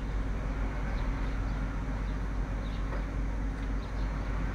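Hot oil bubbling and sizzling steadily as batter-coated green gram balls deep-fry in a pan, over a steady low hum, with a few faint clicks.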